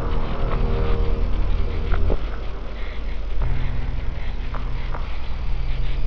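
Dark ambient soundscape: layered low droning tones that shift pitch a couple of times, with a few scattered short, sharp ticks over them.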